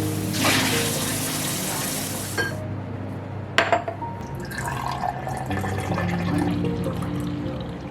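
Water pouring steadily, then stopping abruptly about two and a half seconds in. A sharp clink follows about a second later, then a few small light knocks.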